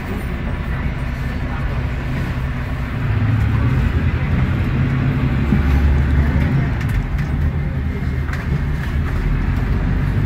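Mercedes-Benz OM936LA Bluetec6 inline-six diesel of an O500U city bus, heard from inside the passenger cabin while the bus is driving. The engine runs steadily and gets louder about three seconds in, as it pulls under load.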